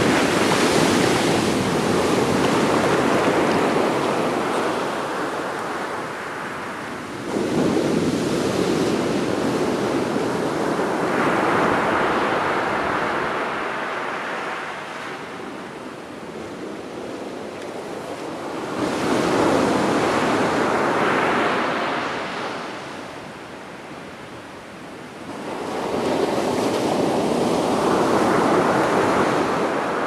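Rough sea surf: large waves breaking on a sandy beach, each one a loud rushing crash that swells up and then fades as the wash runs back, about five times in thirty seconds.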